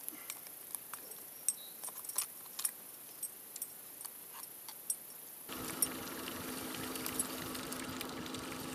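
Light metallic clicks and rattles of a bucktail spinner's hooks and blade being handled while a fish is unhooked. About halfway through, a steady outboard motor hum starts abruptly.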